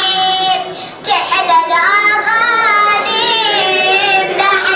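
A high-pitched voice chanting a drawn-out, ornamented melody of an Arabic devotional mawlid poem in the radood style, with a short breath break about a second in.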